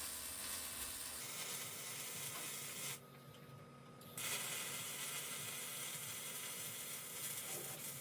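Welding arc sizzling on a steel car chassis in two runs. The first bead stops about three seconds in, and the next one starts a second later and carries on.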